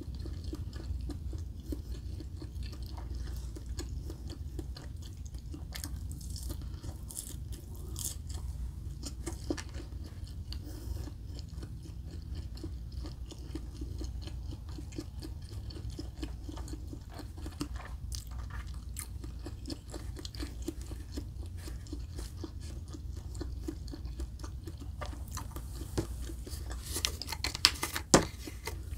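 Close-miked chewing of Spam and egg: steady wet chewing with small crunches. Near the end come a few sharp, louder clicks and knocks.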